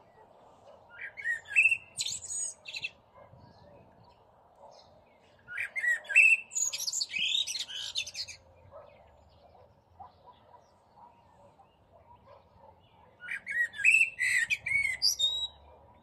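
Eurasian blackbird (Turdus merula) singing its spring song to attract a mate. It sings three phrases several seconds apart, each of lower whistled notes running into a high twitter.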